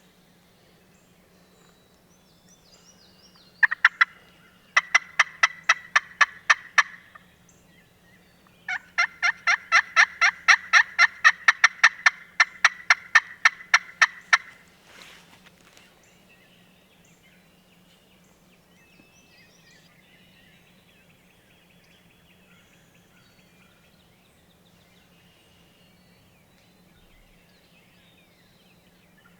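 Turkey yelping in runs of sharp, evenly spaced notes. Two notes come first, then a run of about ten, and after a short pause a faster, longer run of some two dozen lasting about six seconds.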